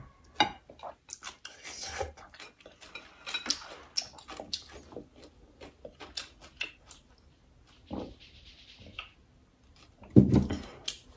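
Close-miked eating sounds of noodle soup: slurping noodles and broth, wet chewing and lip smacks, with small clicks of chopsticks and glassware. A louder, deeper thump comes just after ten seconds in.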